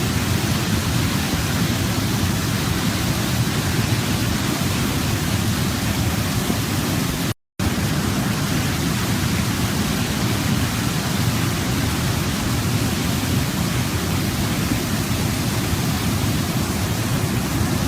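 Waterfall: a steady, full rush of falling water, heaviest in the low range. About seven seconds in, the sound cuts out completely for a fraction of a second and then resumes unchanged.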